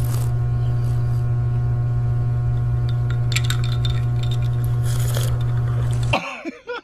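A loud, steady low buzz, an edited-in sound effect, that cuts off suddenly near the end, with a few faint light clinks in the middle.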